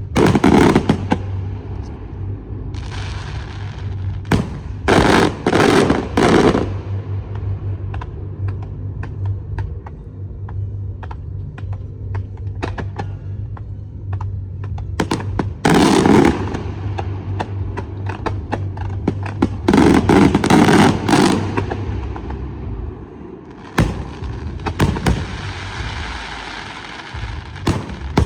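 Fireworks going off: a string of sharp bangs, with loud clusters of rapid reports about a second in, at about five seconds, around sixteen seconds and around twenty seconds, and a hissing crackle near the end.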